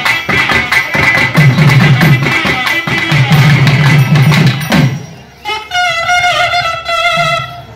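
Thavil drums beating a fast, dense rhythm over a nadaswaram. About five seconds in the drums stop and the nadaswaram carries on alone with a wavering melody.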